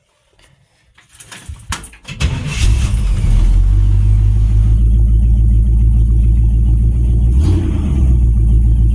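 Car engine started after a few clicks, catching about two seconds in and then running at a loud, steady high idle, heard from inside a cabin stripped to bare metal with no interior trim.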